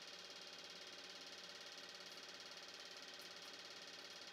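Near silence: a faint, steady background hiss and hum with no distinct events.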